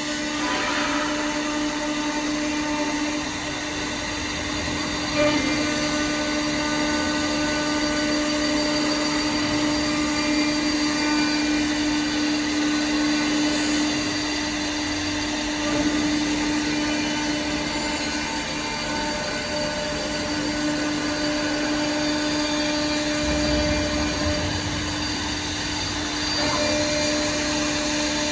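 CNC wood lathe with twin engraving spindles running: a steady whine of several held tones from its spindle motors, with a brief knock about five seconds in.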